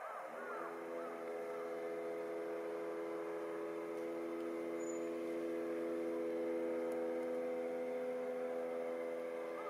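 A steady mechanical hum of several held tones, like a motor or engine running.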